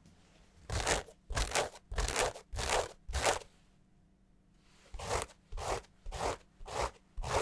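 Super heavyweight selvedge denim with a twisted black-and-white grandrelle yarn weft scratched by hand: two runs of about five short scratches each, a pause of a second and a half between them. The scratch has some bass to it, which comes from the heavy fabric's bigger yarns, and the texture of the slubby weave can still be heard.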